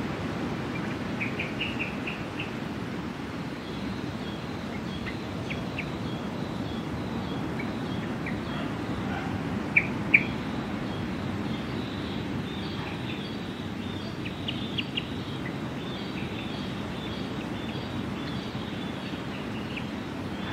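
Birds chirping now and then over a steady low rushing noise: a quick trill of chirps about a second and a half in, two sharp, louder chirps about halfway through, and more faint chirps later on.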